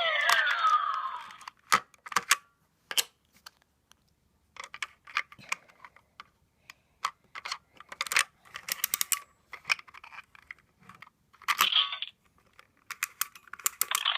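Plastic Yo-kai medals and their packaging being handled, in scattered clicks and rattles. A DX Yo-kai Watch toy's small speaker plays a short electronic sound with falling sweeps at the start, and brief electronic bursts near the end.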